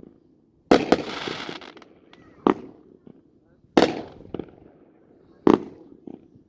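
A 500-gram consumer firework cake firing: loud, sharp bangs one to two seconds apart, with a couple of smaller pops between them. The first pair of bangs is followed by about a second of crackling hiss.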